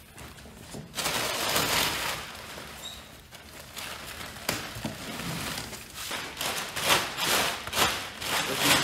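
Crumpled brown kraft packing paper and plastic-wrapped parts rustling and crackling as they are pulled out of a cardboard box, in irregular bursts that grow busier near the end.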